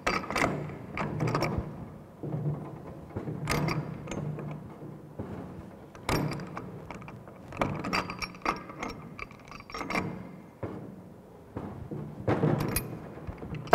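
Two steel pipe wrenches tightening a threaded pipe union: irregular metallic clicks and clanks, some ringing briefly, as the wrench jaws bite, slip and are reset on the fitting.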